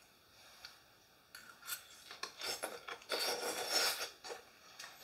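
Metal fork scraping and clicking against a ceramic bowl as stir fry is picked up, starting about a second in, then chewing a mouthful near the end.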